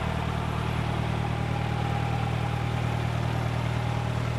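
John Deere 2010 tractor's 144 cubic inch four-cylinder LP gas engine running steadily as the tractor is driven.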